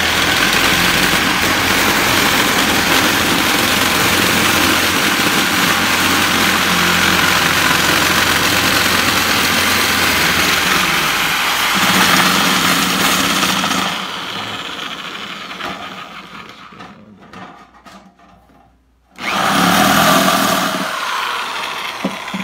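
Electric swivel-head sheet-metal shears cutting through 22 gauge steel sheet, a loud steady running noise for about fourteen seconds that then winds down. A second short burst of cutting comes near the end and trails off.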